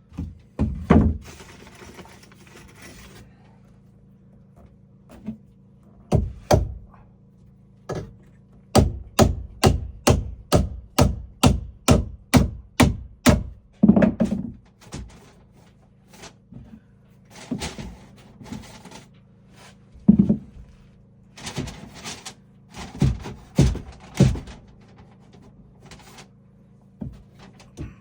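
Hammer blows on wood: scattered knocks, then a steady run of strikes about two and a half a second in the middle, then more irregular knocks.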